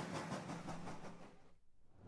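Model steam locomotive running on its track, a rhythmic beat of about four a second, fading out to near silence near the end.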